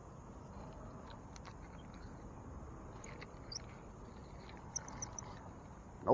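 Quiet outdoor pond-side ambience: a faint steady background with a few light clicks and short high chirps, including a quick run of four about five seconds in. A single sharp thump, the loudest sound, comes right at the end.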